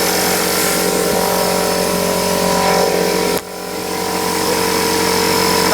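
A nail gun fires once with a sharp crack about three and a half seconds in, over a steady motor hum. The hum dips suddenly at the shot and then builds back up.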